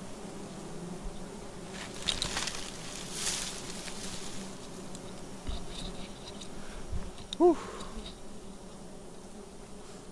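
A colony of giant honeybees (Apis dorsata) buzzing steadily at their open comb. Rustling handling noise about two to three seconds in, and a short pitched sound about seven and a half seconds in, the loudest moment.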